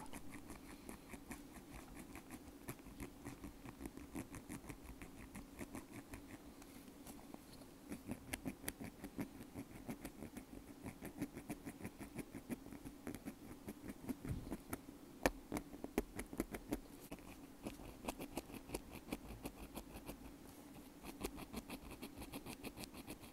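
Bamboo ear pick scraping and scratching inside a wired earbud: a rapid, continuous run of fine dry scratches, louder for stretches about a third of the way in and again past the middle.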